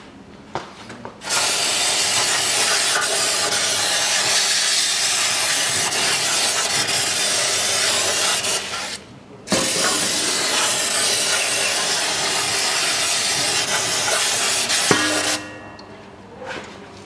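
Aerosol cleaner sprayed from a can in two long hissing blasts, of about seven and six seconds, with a short break about halfway. It is washing leftover old gasket off the manual gearbox's oil-pan mounting face.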